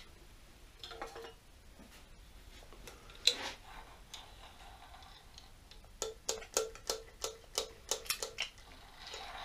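Metal clicks of a hand wrench working the gib screw into a Pratt & Whitney Model B lathe's cross slide. A few separate clicks come first, the loudest about three seconds in. From about six seconds in there is a quick run of about a dozen even ticks, three or four a second.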